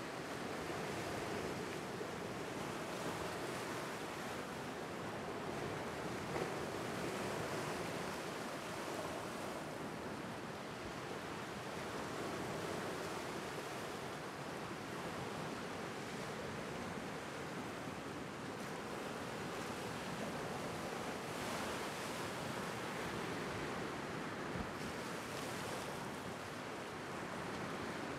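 Lake Superior waves rolling in and breaking over a flat rock shoreline: a steady rush of surf that swells and ebbs every few seconds.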